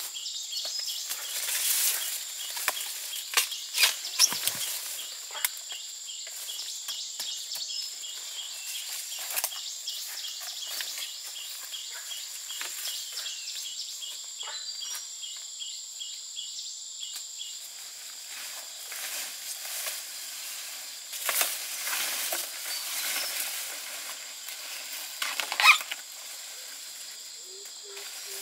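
Insects chirring steadily, with scattered crackles, snaps and rustles of handling dry plant matter; a sharp snap near the end is the loudest sound.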